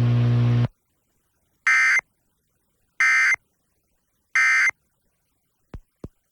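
Emergency Alert System end-of-message code: three short, identical bursts of data tones about a second and a half apart, the signal that closes an EAS alert. Before them, a steady low hum cuts off suddenly under a second in. Two faint clicks come near the end.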